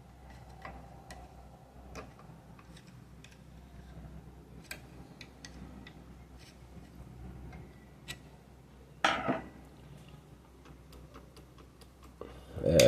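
Light metallic clicks and ticks from the parts of a jammed Elgin sewing machine being handled at its shuttle and bobbin case, with one louder clack about nine seconds in.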